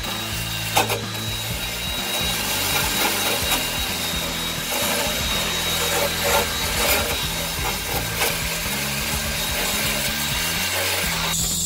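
Cordless Dowen Pagio drill spinning a wire cup brush against a car's steel floor pan, a steady scratchy scrubbing as the bristles strip rust and dirt off the sheet metal to prepare it for welding.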